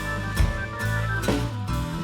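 Music: a sustained organ-like keyboard chord over deep bass, with drum hits.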